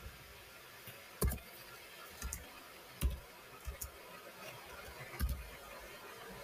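Computer keyboard keystrokes: a handful of faint, separate key clicks spread irregularly, about one a second.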